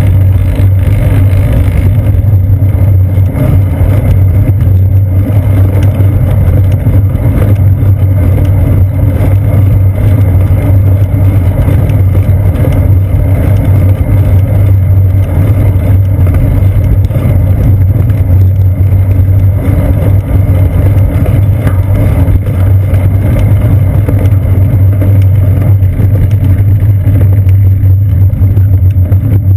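Steady, loud low rumble of a bicycle riding along a paved path, picked up through a seat-post-mounted GoPro Hero 2 camera.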